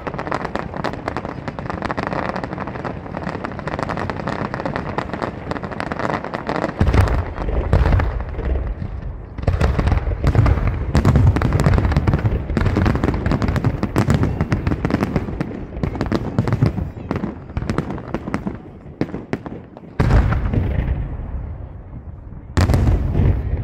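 Fireworks display: a dense run of sharp crackling reports for the first several seconds. From about seven seconds in, a fast run of heavy bangs follows as aerial shells burst. Fresh loud volleys come near the end.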